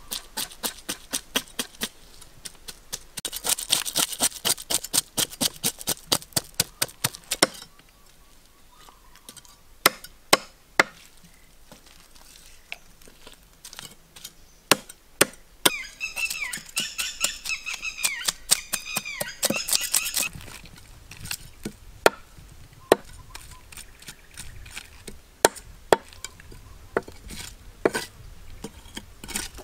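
A knife scraping scales off a fish on a wooden log, in a fast run of strokes, about three or four a second, then slower, scattered strokes. A high wavering call is heard for a few seconds in the middle.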